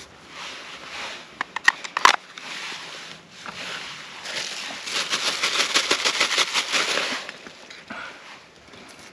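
Dry kindling snapping sharply a few times about two seconds in, then a few seconds of dense crackling of dry tinder and sticks at a small folding wood stove.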